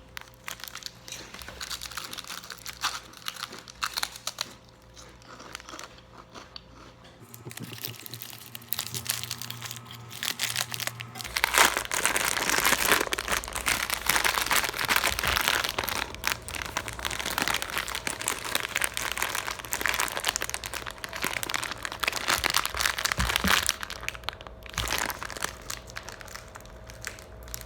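Plastic snack packaging crinkling and crunchy snacks being bitten and chewed close to the microphone, getting louder and denser about eleven seconds in.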